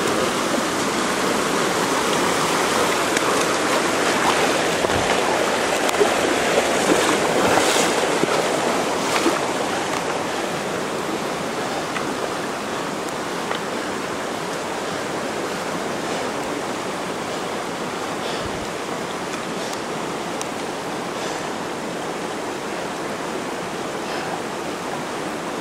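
Mountain stream rushing steadily over rocks, a little louder in the first ten seconds, with a few faint clicks.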